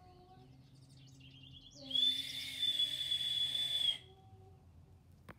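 A small brass whistle blown once as a call for a dog: a single steady, high-pitched blast lasting about two seconds, starting about two seconds in, with breathy air noise around the tone.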